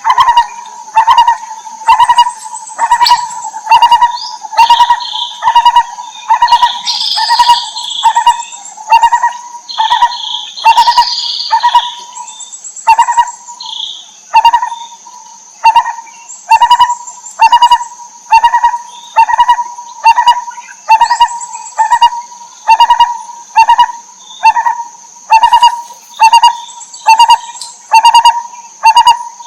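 Lineated barbet calling: a loud, hollow note repeated evenly, about one to two a second. Higher chirps come from about four to fourteen seconds in, over a steady high whine.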